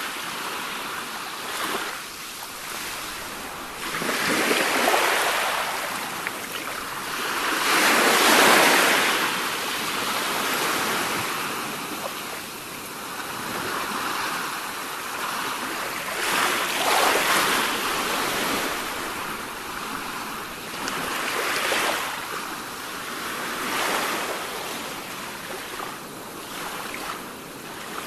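Sea surf: waves breaking in repeated swells every few seconds over a steady hiss of moving water, the biggest surge about eight seconds in.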